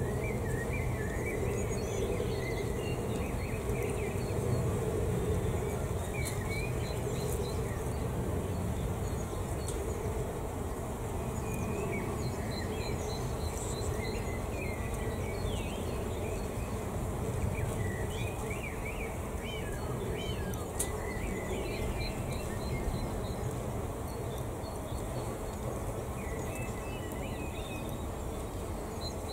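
Many bees buzzing around an insect hotel in a steady drone, with short high chirps scattered through.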